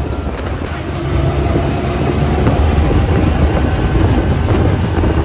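Side-by-side off-road vehicle driving along a dirt trail, heard from inside its open cab: a steady engine and drivetrain rumble mixed with road and wind noise.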